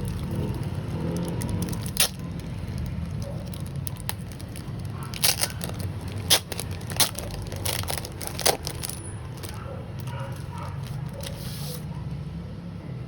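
Packaging being handled: a few sharp clicks and crackles, mostly in a cluster in the middle, over a steady low hum.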